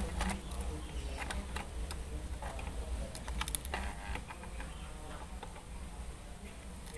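Faint, irregular small clicks and taps of pliers and a soldering iron against the solder side of a TV power-supply circuit board, desoldering and pulling out a failed 250 V filter capacitor, over a low hum.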